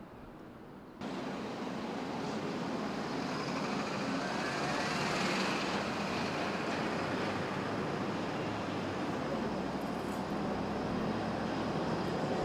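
Jet noise from the four turbofan engines of a Boeing 747 Shuttle Carrier Aircraft flying low overhead. It comes in abruptly about a second in, swells to its loudest around the middle, and then holds steady.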